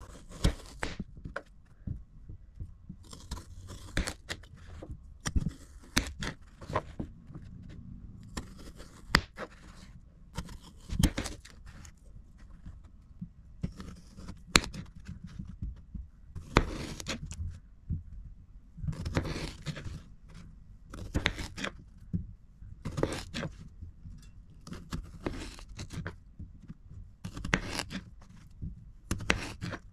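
Kitchen knife cutting small yellow potatoes in half on a cutting mat: a crisp slicing crunch through each potato, ending in a tap of the blade on the mat, repeated every second or two.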